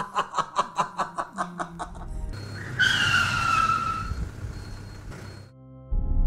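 Repeated laughter, about three or four bursts a second, fades out over the first two seconds. Then comes vehicle road noise with a loud squeal falling in pitch, like tyres skidding. It cuts off abruptly, and soft ambient music begins near the end.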